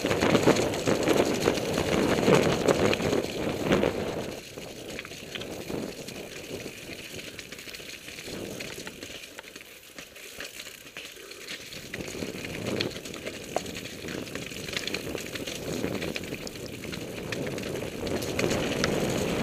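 Mountain bike riding down a snowy, muddy trail: tyre and trail noise with the bike rattling. It goes quieter for several seconds in the middle, then louder again toward the end.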